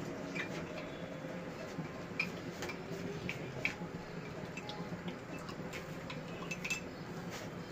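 Spatula stirring a bubbling sugar-and-butter caramel mixture in a metal pot, giving irregular light clicks and ticks, a dozen or so scattered through, over a steady low hum.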